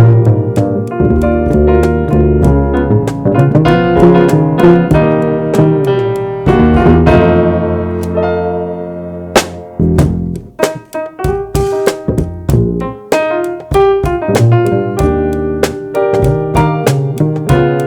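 Live jazz trio playing, the keyboard's piano sound to the fore with dense chords and runs over upright-style bass, drums kept light. About halfway through the playing thins to a held chord, then a sharp accent leads into choppier, more detached phrases.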